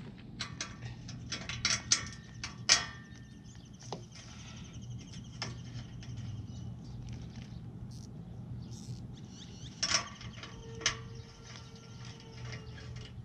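Quarter-inch Matco indexable hand ratchet clicking in short runs as bolts on the fog-light brackets are worked loose, with scattered metal clinks and knocks of tools against the steel ram guard. The loudest knocks come about two to three seconds in and again near the end.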